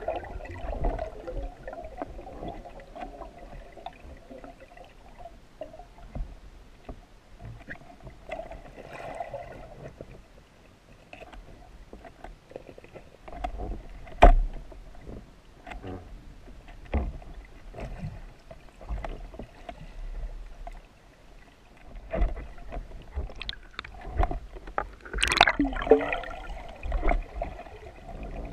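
Underwater sound picked up by a camera beneath the surface: a muffled low rumble of water with scattered clicks and knocks. There is one sharp knock about halfway through, and a busier, swishing stretch near the end.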